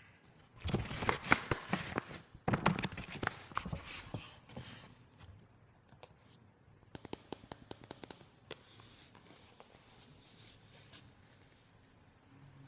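Hands unboxing a new iPhone's packaging: two bursts of crackly tearing and rustling of the box wrapping in the first four seconds, then a quick run of small clicks and taps at about seven seconds, followed by soft rustling.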